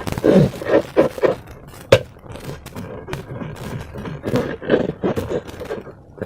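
Slime being squished and worked by hand: irregular wet squelches and sticky crackles, with one sharp snap about two seconds in.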